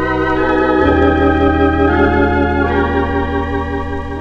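Organ playing slow sustained chords from a vinyl record, moving to a new chord about a second in and again near three seconds. The notes waver with a gentle vibrato.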